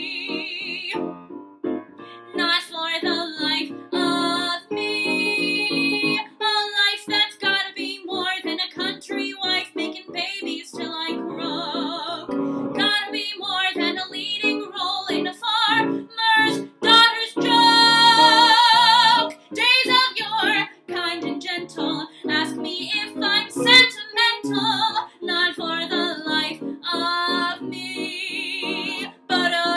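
A woman singing a musical-theatre song, with wide vibrato on long held notes; the longest comes about 18 seconds in.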